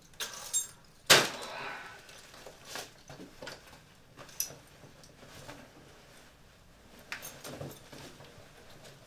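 A heavy winter coat being unbuttoned and taken off, its fabric rustling, with scattered small clicks. A single sharp knock about a second in is the loudest sound.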